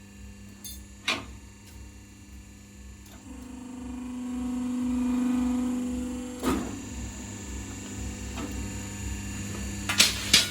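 Electric rebar cutting and bending machine running with a steady motor hum. Midway it loads up and grows louder for about three seconds during a working stroke, then stops with a sharp clunk. Metal clanks come once early and twice near the end.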